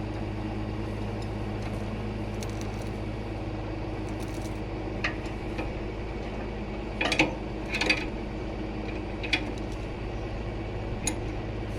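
Engine idling steadily, with a chain clinking and clanking now and then as it is hooked on; the loudest clanks come about seven and eight seconds in.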